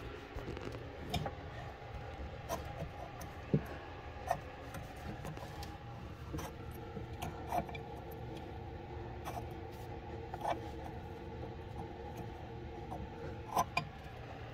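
Plastic faucet mounting nut being turned by hand under a sink: light rubbing and scraping with a dozen or so scattered small clicks, over a low steady hum.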